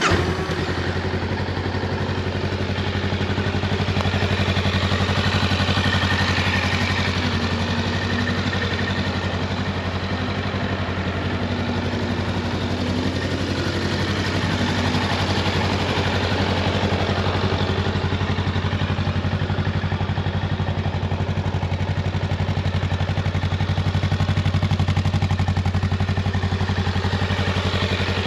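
Honda Rebel 500's 471 cc parallel-twin engine idling steadily on its exhaust.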